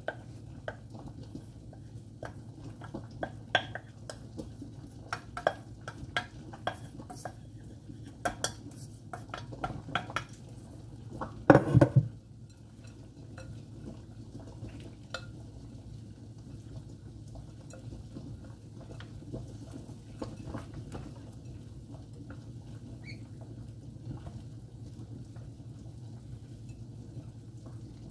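A stainless steel saucepan and spoon clinking and knocking against a glass mixing bowl as cooked rice is emptied out, with one loud clatter near the middle. After that, softer scraping and clicking as a wooden spoon stirs the rice and ground beef in the bowl, over a steady low hum.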